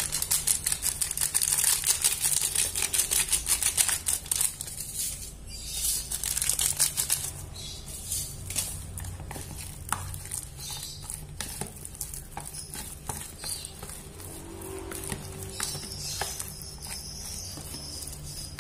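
Plastic seasoning sachet crinkling rapidly as it is squeezed and emptied for the first few seconds. After that, a spoon stirring soft dough in a plastic container, with scattered light clicks.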